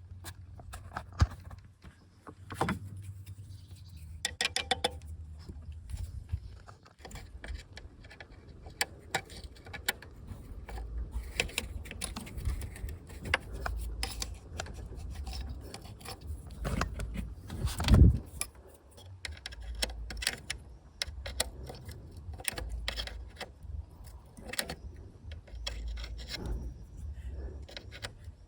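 Hand-work on a car: metal tools and parts clinking, scraping and rubbing in many small clicks. One louder knock comes a little past the middle.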